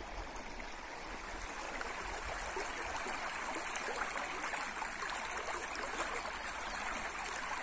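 Shallow, fast river water rushing steadily over a riffle.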